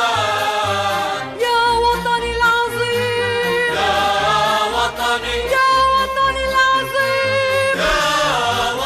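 Music: an Arabic song, with a choir holding long sung notes over instrumental backing.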